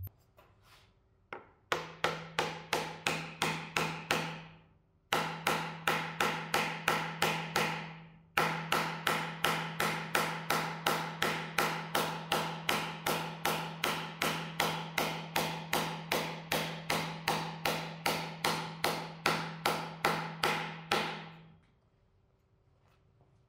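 Rapid, even hammer blows, about three to four a second, driving a wooden leg down into an interlocking three-way castle joint; every blow rings at the same pitch. The blows come in three runs, with brief breaks about four and eight seconds in.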